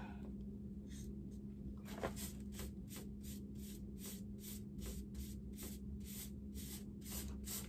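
Paintbrush swishing back and forth over a flat dresser panel as chalk paint is brushed on, a quick regular run of strokes about three a second starting about a second in, over a steady low hum.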